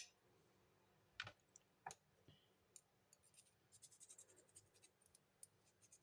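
Faint, scattered clicks and a few short scrapes of a hand file and small steel parts being worked. There are three short strokes in the first two seconds, then many tiny ticks.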